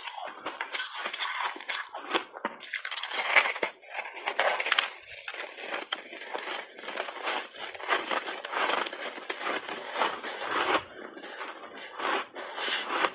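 Ice being bitten and chewed close up: blocks of frozen ice coated in matcha tea powder cracking and crunching between the teeth in a dense, irregular run of sharp crunches with a few short lulls.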